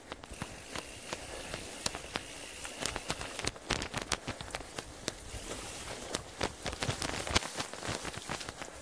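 A bicycle being taken through mud and undergrowth on an overgrown trail: a steady rustle with many irregular crackles and snaps. A faint, steady high whine runs through the first three seconds or so.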